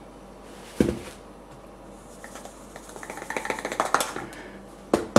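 Plastic container of dishwasher powder being knocked and shaken to settle the powder: a thump about a second in, then a run of rattling and scraping, and another knock near the end.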